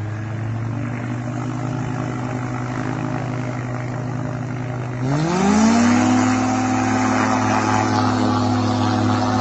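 Engine and propeller of a hang-glider-winged ultralight flying boat running steadily, then throttled up about five seconds in: the pitch rises quickly and holds higher and louder as the craft speeds across the water. A second, lower steady engine drone stays unchanged underneath.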